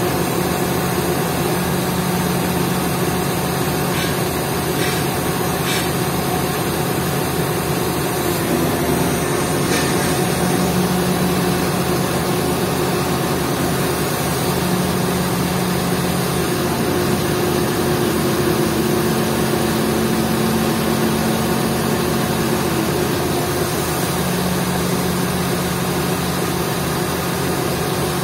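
Diesel engine of an XCMG 50-ton mobile truck crane running steadily, with a hum that shifts in pitch now and then.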